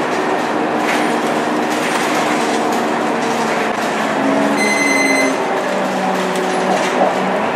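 Scania K230UB bus's engine and ZF 6HP502C automatic gearbox droning steadily, heard from inside the passenger cabin while the bus is under way. A short, high electronic beep sounds about five seconds in.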